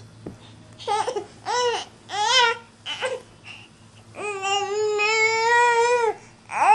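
Infant vocalizing: a few short rising-and-falling squeals, then one long, steady high-pitched squeal lasting about two seconds, with another beginning at the very end.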